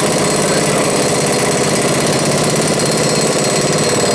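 Central Pneumatic twin-hammer air impact wrench hammering steadily on a UTV's axle castle nut, which is still not breaking loose.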